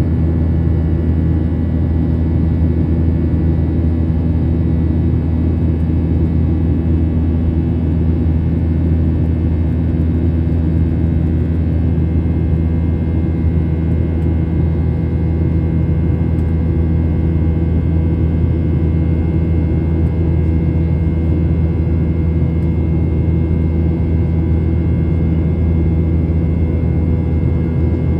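Airliner cabin noise: a loud, steady low rumble of engines and airflow heard from inside the passenger cabin, with a faint even hum over it and no change throughout.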